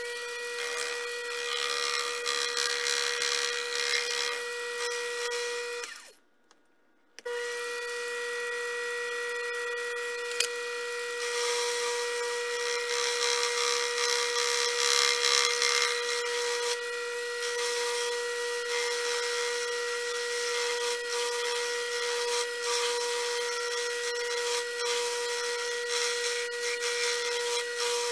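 Sherline mini lathe running with a steady motor whine. It stops briefly about six seconds in and restarts about a second later. From about eleven seconds in, the tool is cutting the spinning metal shaft, adding a hissing scrape to the whine.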